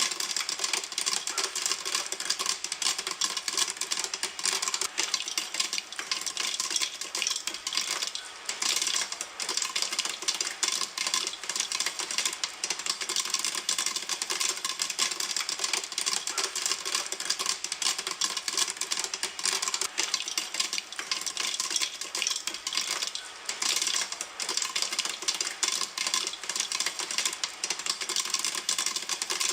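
Popcorn kernels popping in a pan: a dense, continuous crackle of sharp pops.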